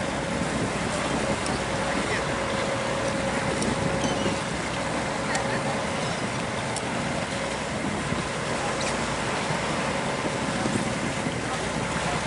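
A boat's engine running steadily with a constant hum, over the rush of wind and sea water.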